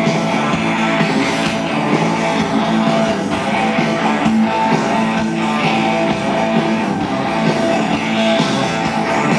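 Live hard-rock band playing an instrumental passage led by an electric guitar riff, loud through a stadium PA.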